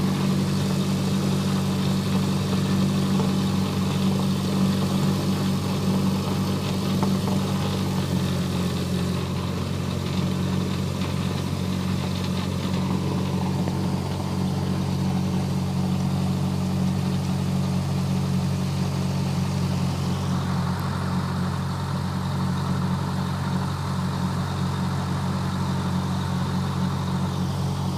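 Cessna Skyhawk's propeller engine idling steadily, a low even drone with no change in speed.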